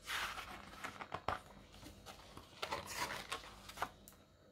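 Pages of a paperback book being turned by hand: a papery swish right at the start, then light rustles and clicks of handling, with another cluster about three seconds in as further pages are turned.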